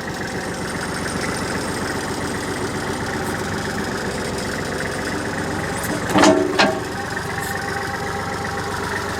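Backhoe engine running steadily at a working idle while the bucket is curled and moved, with one brief louder sound about six seconds in.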